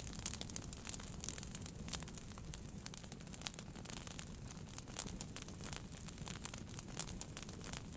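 Wood fire burning in a fireplace: irregular sharp crackles and pops from the burning logs over a low steady rumble of the flames.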